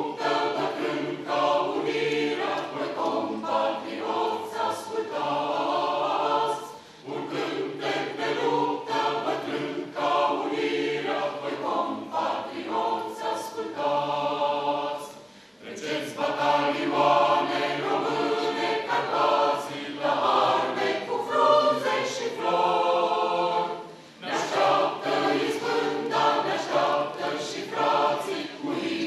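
Mixed choir of men's and women's voices singing unaccompanied in several parts, in long sustained phrases broken by three short pauses for breath.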